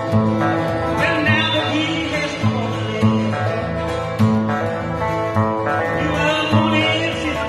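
Country music played by a small band, led by guitar over a moving low line.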